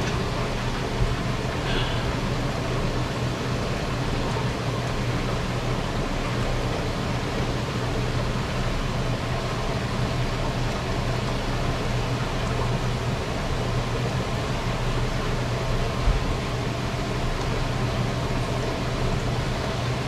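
Whirlpool bathtub's jets running: a steady motor hum with water churning in the filled tub. Two brief low thumps, about a second in and again near the end.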